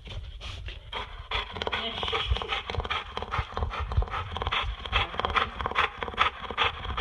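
A dog panting hard and fast, about three to four breaths a second, after a mile run in warm weather: the owner takes the heavy panting for the sign of an out-of-shape dog.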